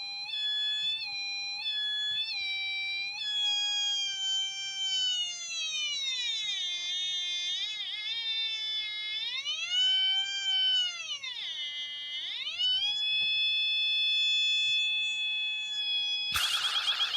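A home-made fidget spinner's electronic tone generator sounds through its small speaker. It is a pulse-generator circuit whose pitch is set by a phototransistor, so the tone steps and glides up and down as the light on the sensor changes. The tone then holds steady and warbles rapidly near the end.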